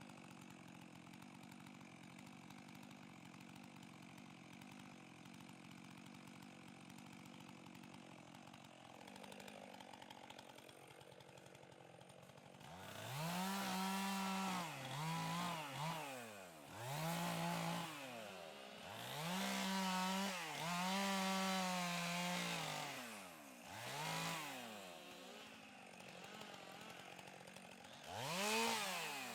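Chainsaw idling low and steady, then, about halfway through, revved up in a series of about seven short bursts, the engine pitch rising and falling with each one.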